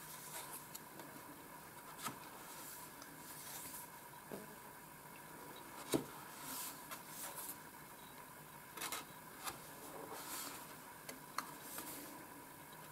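Thick card stock being handled and turned over card by card: faint sliding and rubbing of card against card, with light taps, the sharpest about six seconds in.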